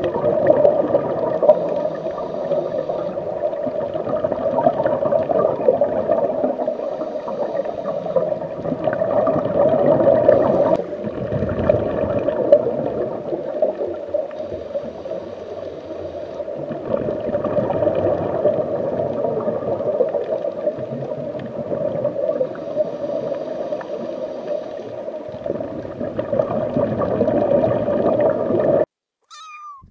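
Steady underwater gurgling and bubbling water noise, strongest in the low middle. It cuts off suddenly shortly before the end.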